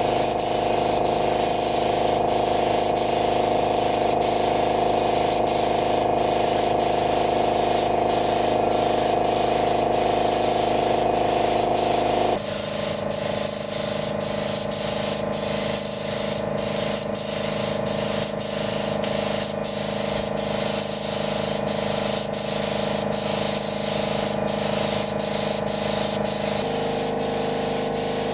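Compressed-air spray gun hissing steadily over a constant hum, with the hum shifting pitch about twelve seconds in and again near the end.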